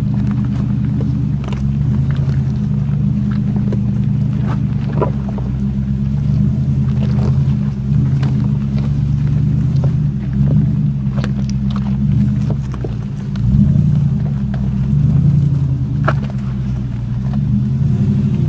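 Off-road vehicle engine running steadily at low revs while crawling a bumpy trail, with scattered knocks and rattles from the bumps; the engine note dips and rises briefly about two-thirds of the way through.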